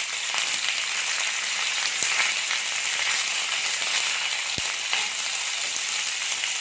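Chopped onions and green chillies frying in hot oil with whole spices in a kadai, a steady sizzle with small crackles.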